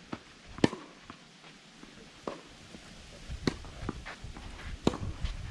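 Tennis rally on a clay court: a tennis ball struck by rackets and bouncing, four sharp hits spaced about one to one and a half seconds apart, the first the loudest, with fainter knocks between them.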